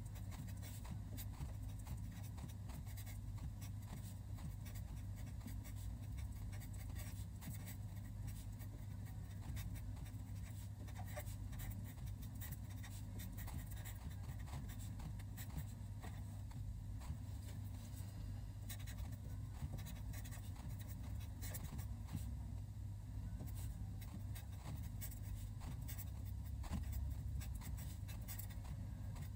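A black fine-tip pen writing Chinese characters by hand on paper: a run of quick, soft scratches and taps of the tip, stroke by stroke, over a low steady hum.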